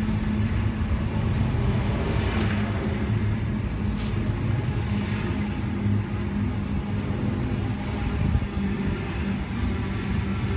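Sydney Trains Tangara double-deck electric train moving along the platform: a steady rumble of wheels on rail under a low electric motor hum, with a single sharp click about four seconds in.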